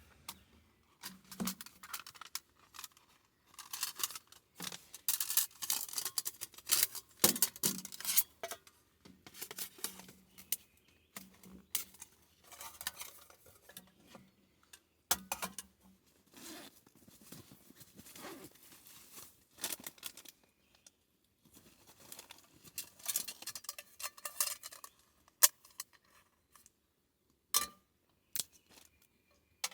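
Close-up handling sounds: irregular clicks, clinks and rustling of small objects being worked by hand, busiest in the first third and again near the end.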